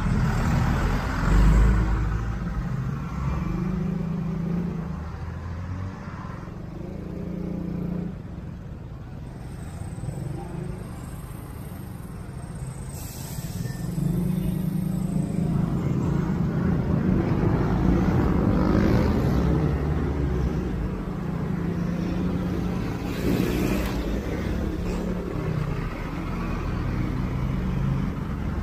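Motorcycle engine running through city traffic, its pitch shifting up and down with the throttle, with road and wind noise. It gets louder about halfway through as the bike picks up speed.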